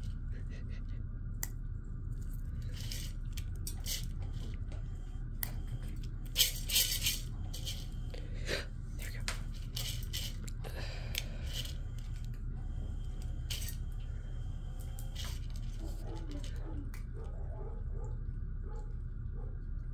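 Dry cat kibble clicking and skittering on a hard floor as cats chase and bat at the pieces: scattered sharp ticks, with a quick cluster about six to seven seconds in, over a steady low hum.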